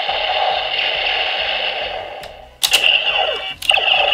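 Neo Decadriver toy belt playing electronic sound effects through its small speaker; the sound fades out about two thirds of the way in. Two sharp plastic clicks follow as the belt's sides are worked and the buckle turns, and each click sets off a new electronic tone with falling glides.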